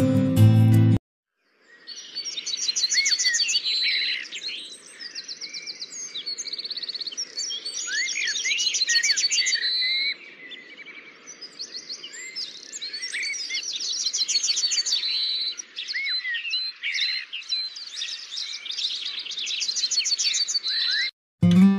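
Several songbirds singing at once: quick chirps, rapid trills and short whistled notes overlapping, with a faint hiss beneath. Acoustic guitar music stops about a second in and comes back near the end.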